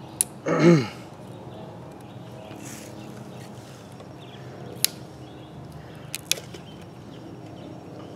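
Knife blade working a square notch into a green wooden pole: a few sharp, isolated clicks of the blade in the wood. Near the start, a brief human voice sound falling in pitch is the loudest thing.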